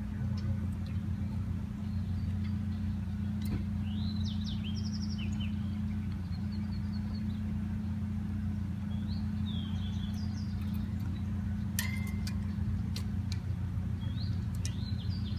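Songbirds chirping in short phrases three times over a steady low hum, with a few sharp clicks around the middle.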